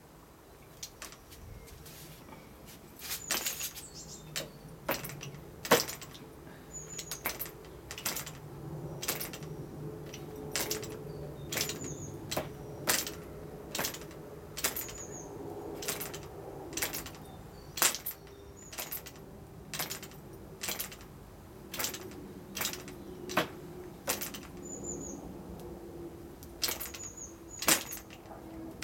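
AM 15 model aircraft diesel engine being flicked over by hand, a sharp click about once a second as the propeller is swung against compression; the engine is not yet running. A faint steady hum lies underneath, and small bird chirps come now and then.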